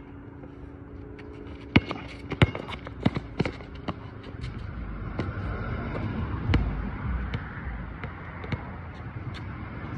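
Basketball play on an outdoor court: a run of sharp slaps and bangs of the ball on the asphalt and the hoop, loudest about two seconds in, with a low rumble building in the second half.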